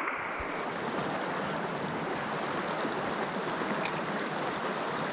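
Shallow creek water running over stones: a steady rushing with no pauses.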